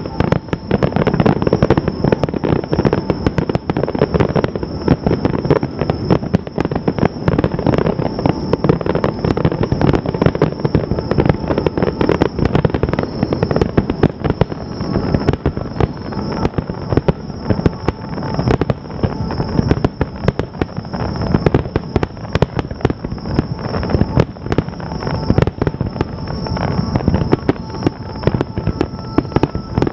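Fireworks finale: a dense, unbroken barrage of shell bursts and crackle with no pauses, under a steady high thin tone.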